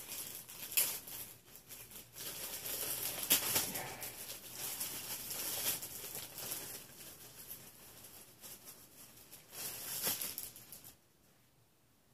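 Packaging crinkling and rustling as a t-shirt is unwrapped and pulled out, with a few louder crackles, stopping abruptly near the end.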